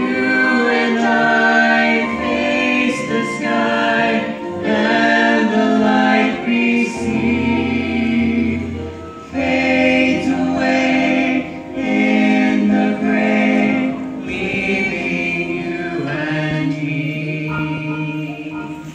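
Stage-musical cast singing together in chorus, holding long notes over a deep bass line.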